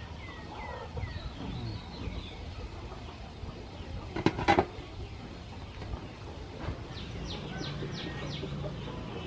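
Domed aluminium steamer lid set onto the pot with a few quick metal clanks about four seconds in, over a background of birds chirping.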